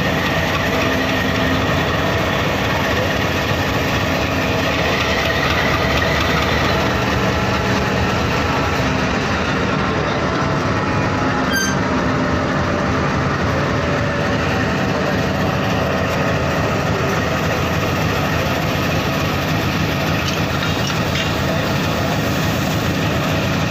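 Bangladesh Railway broad-gauge diesel-electric locomotive 6508 idling, its engine running steadily with a constant hum.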